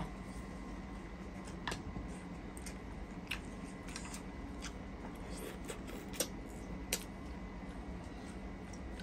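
Quiet eating sounds: scattered sharp clicks of spoons and mussel shells against plates, two of them loudest about six and seven seconds in, over a steady low hum.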